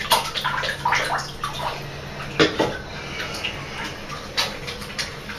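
Bath water splashing and sloshing in short, irregular bursts as people shift and move their hands in a bathtub.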